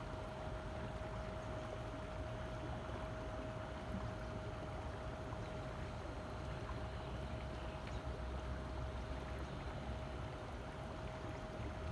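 A boat under way: a steady motor hum with one constant whine over a rush of water and low rumble, unchanging throughout.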